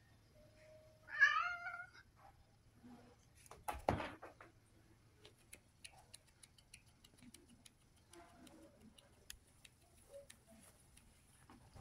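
A domestic cat gives one drawn-out meow about a second in, starting low and rising in pitch. Near four seconds there is a short thump, followed by faint scattered clicks and rustling as a cat paws at bedding.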